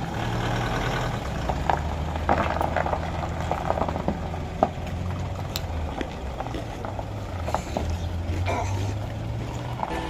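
A vehicle's engine running at low revs, a steady low hum whose pitch shifts a little, with a few light clicks and knocks.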